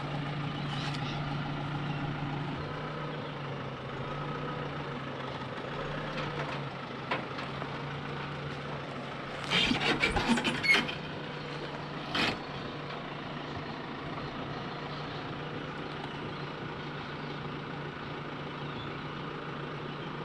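A vehicle engine running steadily at low revs. About halfway through comes a quick cluster of sharp clicks and knocks, and one more knock a moment later.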